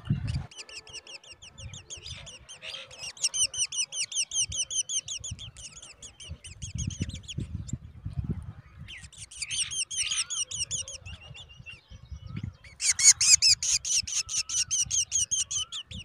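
Black drongo nestlings begging: rapid runs of short, high-pitched chirps, several a second, in three bouts, the loudest burst near the end as an adult is at the nest.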